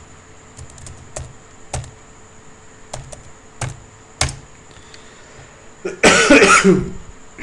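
Computer keyboard keys pressed one at a time as a transaction code is typed, a handful of separate clicks over the first four seconds. About six seconds in, a loud cough lasting about a second.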